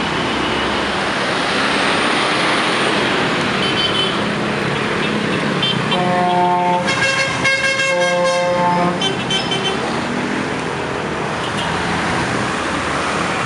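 Busy road traffic of buses, jeepneys and cars: a steady rush of engines and tyres, with a run of several vehicle horn toots from about six to nine seconds in.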